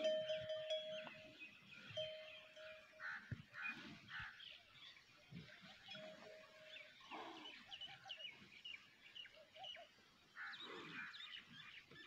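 Outdoor ambience of many small birds chirping and twittering throughout. A steady mid-pitched tone sounds several times, each time for about a second.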